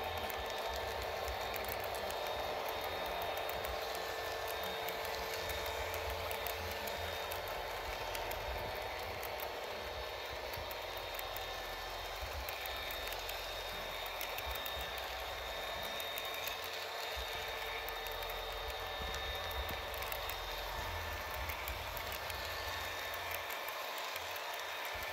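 HO scale model freight cars rolling past on sectional track with plastic roadbed: a steady rolling rattle of small wheels on rail, with many small clicks. The low rumble thins near the end as the last car, a caboose, goes by.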